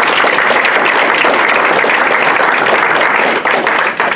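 Audience applauding, many hands clapping densely and evenly, thinning out near the end.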